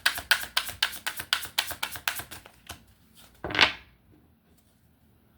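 Tarot cards being shuffled in quick, even slaps, about six or seven a second, stopping about two and a half seconds in. About a second later comes one louder swish of a single card.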